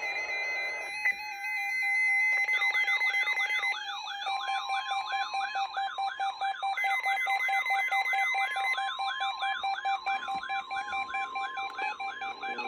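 Several NOAA weather radio receivers sounding their alert alarms for the weekly test: steady electronic tones and fast beeping, joined about two and a half seconds in by a warbling siren-like alarm that sweeps up about three times a second.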